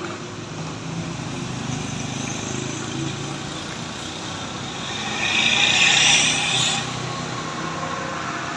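Road traffic with a heavy vehicle's engine running steadily. About five seconds in, a loud hiss swells for under two seconds and cuts off suddenly. No horn sounds.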